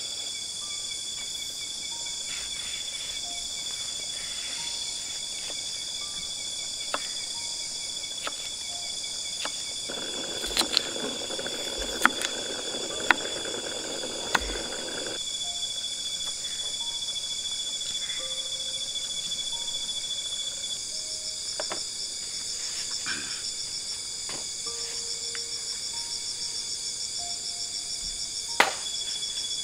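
A steady high-pitched chorus of crickets and other night insects runs throughout. Roughly a third of the way in, a knife chops a few times on a wooden cutting board.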